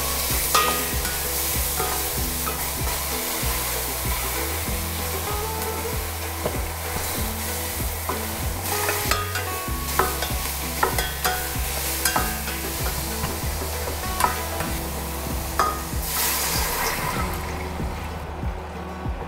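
Tomato and pineapple sizzling in oil as they are stir-fried in a stainless steel pot, with a wooden spatula scraping and knocking against the pot. Near the end the sizzle dies away as water is poured in.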